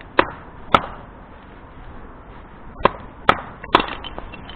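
Hatchet chopping into a piece of firewood to cut it into fairly thick pieces for a small wood stove: five sharp blows, two in the first second, then three in quick succession a couple of seconds later.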